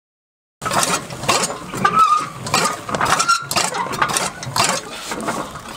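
Hand-cranked chaff cutter being turned, its iron flywheel and blades clanking and chopping fodder in a quick run of strokes, about three a second, with short metallic squeaks. It starts about half a second in.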